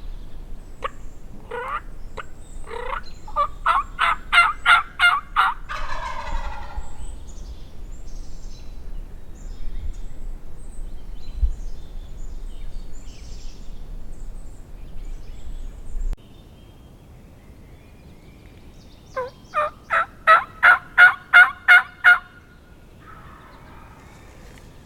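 Wild turkey calling: a run of eight or nine evenly spaced yelps, about three a second, followed by a gobble about six seconds in, and near the end a second run of nine yelps.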